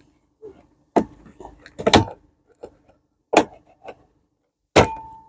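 A series of sharp clicks and knocks from tools and plastic door trim being handled, four louder ones about a second or so apart, the last followed by a brief ringing tone.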